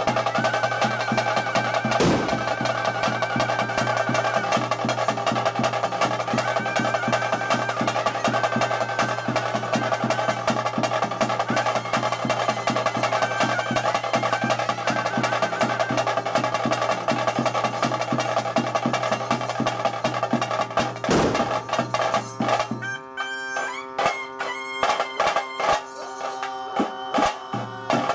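Bhuta kola ritual music: fast, dense drum rolls over held sustained tones and a melody line. A little before the end the drumming thins out to separate strikes.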